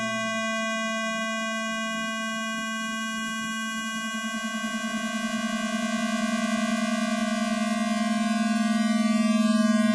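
Synthesized square-wave tones holding steady together as a buzzy electronic drone, with a pulsing beat between the pitches. A lower tone drops out about half a second in and returns near the end, and the drone grows louder over the second half.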